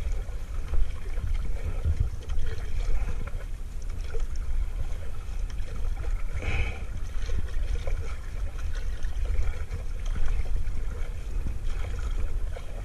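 Water lapping and trickling against the hull of a small wooden outrigger canoe with its engine off, over a low uneven rumble, with one brief sharper splash or knock about six and a half seconds in.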